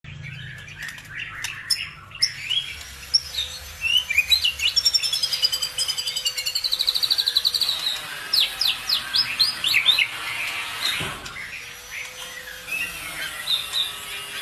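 Songbird singing a fast, varied song of chirps and trills, with a rapid even trill about six seconds in and a quick run of sweeping notes just after.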